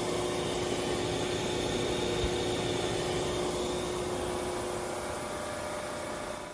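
20-inch State pedestal disc sander's 2 hp motor running with the disc spinning free, a steady mechanical whir with a hum on top that fades out about two-thirds of the way through.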